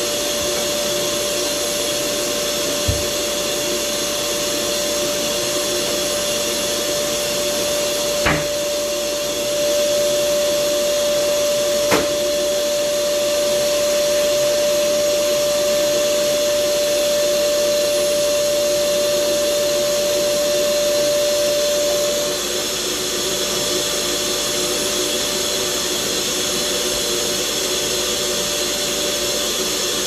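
Red canister vacuum cleaner running steadily with its suction hose in use, a steady whistle over the motor noise that stops about two-thirds of the way through. A few short, sharp knocks sound over it.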